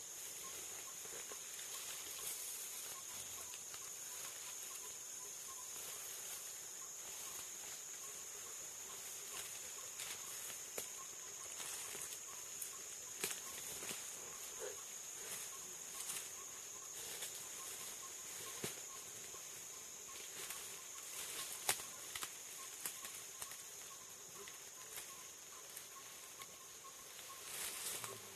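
Steady high-pitched insect buzz in the rainforest, with scattered rustles, crackles and snaps of leaves and stems in the undergrowth. One sharper snap comes about two-thirds of the way through, and there is a burst of rustling near the end.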